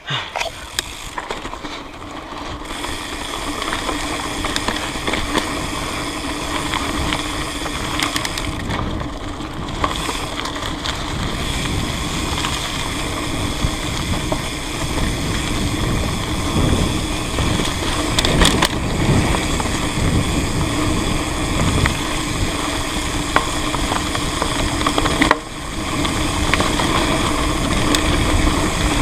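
Mountain bike rolling over rough trail, its SpeedOne Torpedo rear hub (8 pawls, 96 points of engagement) buzzing steadily as it coasts. The buzz sits over tyre noise and rattle, builds over the first few seconds and drops out for a moment near the end.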